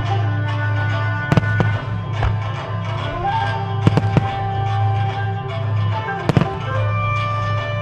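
Fireworks bursting over music with long held notes: sharp bangs in close pairs about a second and a half in, about four seconds in, and just after six seconds.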